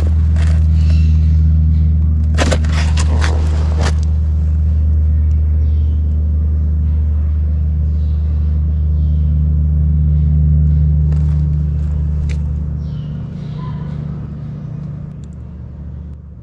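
Earthquake ground rumble: a deep, loud, steady drone that fades away over the last few seconds. Brief rattling and knocking come in the first four seconds.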